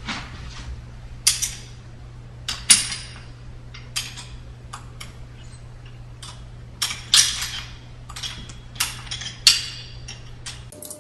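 Irregular metallic clicks and clinks of a wrench working the bolt on a StairMaster stepper's eccentric hub assembly, over a steady low hum.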